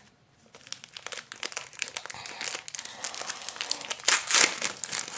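Foil trading-card pack wrapper crinkling in the hands, a dense run of irregular crackles, loudest in a burst about four seconds in.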